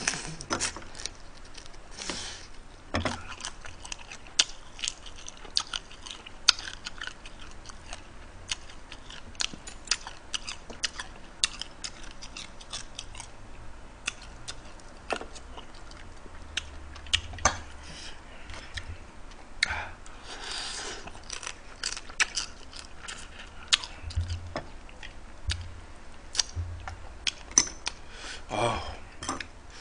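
Close-miked eating of seafood ramen: chewing and lip smacks with frequent small clicks, and a few longer slurps about 2 seconds in, around 20 seconds and near the end.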